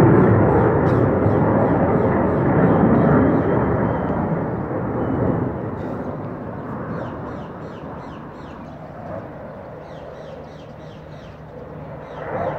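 Jet noise from a JF-17 Thunder fighter's single turbofan engine passing overhead: a loud rushing rumble that fades away over several seconds, then swells again near the end as the jet comes back. Faint bird chirps can be heard as it dies down.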